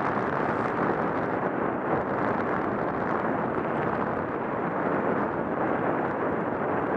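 Steady rushing wind noise buffeting the microphone of a moving bike, with the rumble of its tyres over a snow-packed road.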